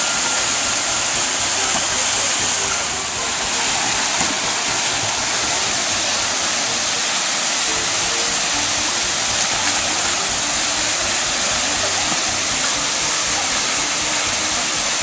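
Steady rushing of falling water, unbroken and even throughout, with faint voices underneath.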